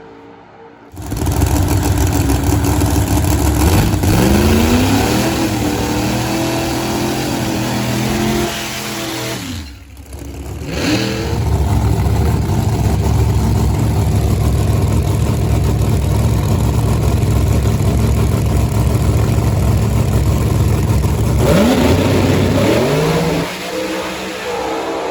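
Drag racing car engine at high revs, its pitch rising and holding as it accelerates; the sound breaks off sharply near the middle and comes back loud, then falls away near the end.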